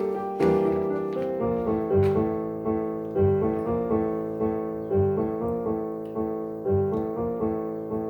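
Piano playing an instrumental passage of the song's accompaniment without voices, a chord struck about once a second with lighter notes between, each ringing and fading.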